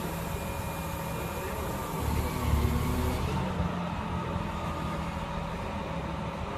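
Diesel engine of a Fenwick reach stacker running steadily while it handles a swap body onto a rail wagon, swelling into a louder low rumble for about a second about two seconds in.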